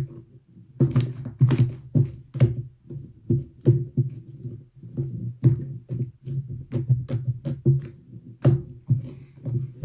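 Slime being squished and pressed by hand, giving an irregular run of sharp clicks and pops, about two or three a second.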